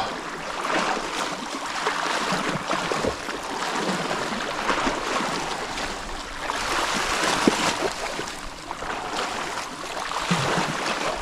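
Sea water sloshing and splashing close by, swelling and easing every couple of seconds.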